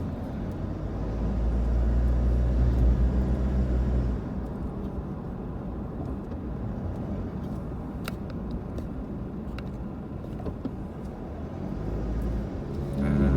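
Car driving along a road: steady engine and road rumble, heavier for the first few seconds, then lighter, with a couple of sharp clicks about eight seconds in.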